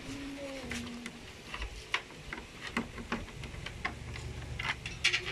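Socket ratchet on a long extension clicking in scattered, irregular ticks as a front-grille mounting bolt is loosened.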